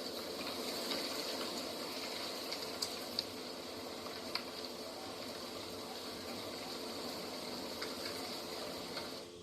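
Steady outdoor nature ambience: a continuous rushing noise with a few faint clicks, cutting off abruptly at the very end.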